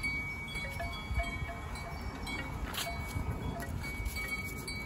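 Chimes ringing faintly, several clear metallic notes at different pitches held and overlapping, over a low rumble.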